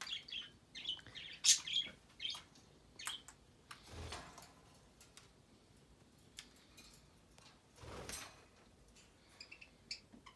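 Caged pet birds chirping in short, high calls, thickest in the first few seconds and again near the end, with two fainter, longer noises about four and eight seconds in.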